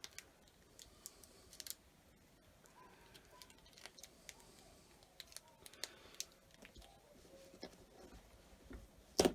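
Scattered faint clicks and taps of small rare earth magnets being handled and fitted together, with one sharp, louder click near the end.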